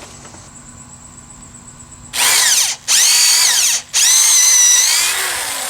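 Power drill boring a pilot hole into a wooden board: three bursts of motor whine, starting about two seconds in, the pitch rising as the drill spins up, the last burst longest and easing off near the end.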